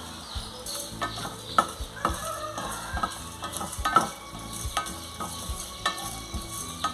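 Whole and ground spices (cinnamon, cloves, allspice, black pepper, cumin and oregano) being stirred and scraped with a spatula in a small enamel pan as they toast and sizzle, with irregular scraping clicks once or twice a second.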